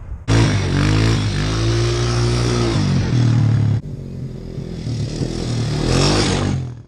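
A small off-road vehicle engine revving up and down. The sound cuts abruptly just under four seconds in to a quieter engine that rises again near the end, as a youth ATV rides toward the camera.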